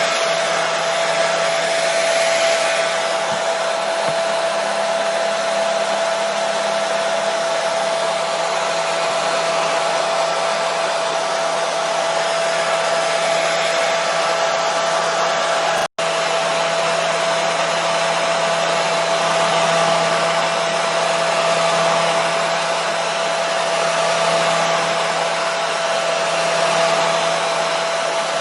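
Hair dryer running steadily: a constant rush of blowing air with a steady motor whine, used as soothing white noise for a colicky baby. It cuts out for an instant about halfway through, then carries on unchanged.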